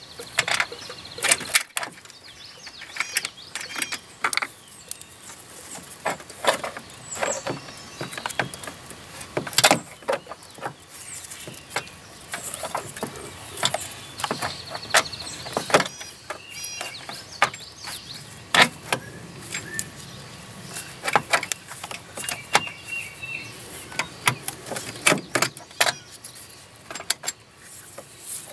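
Irregular metal clicks, clinks and knocks of hand tools working refrigerant line fittings into place on a car's air-conditioning system, a stubborn job where the lines have to be forced on.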